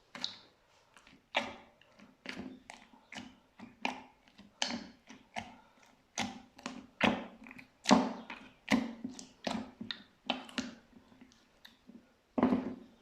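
Slime being pressed and squeezed by hand, a run of wet squishes and crackling pops about one or two a second.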